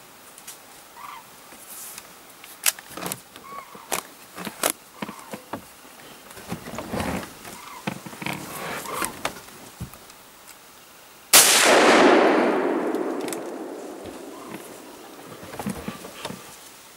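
A single hunting rifle shot about two-thirds of the way in, very loud with a long rolling echo that dies away over about three seconds. Before it, scattered clicks and soft knocks of handling close to the microphone.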